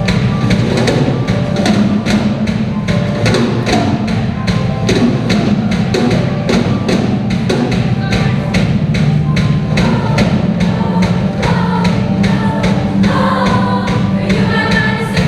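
Live band music for a show-choir number: an instrumental passage driven by a steady drumbeat of about three strikes a second over sustained bass.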